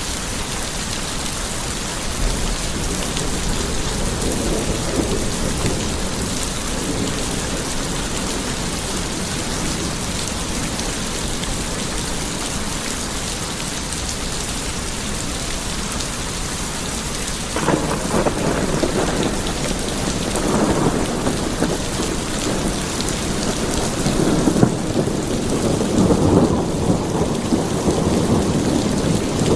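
Steady rain with thunder. Low rumbles roll in a few seconds in, then a louder peal breaks suddenly about 18 s in and keeps rumbling to the end.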